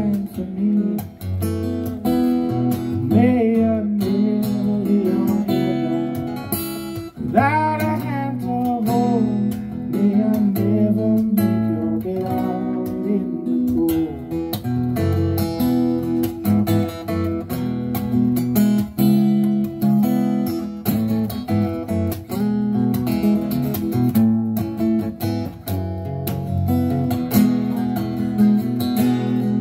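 Acoustic guitar strummed and picked in a steady rhythm, with a man singing over it in the first few seconds and again near the end.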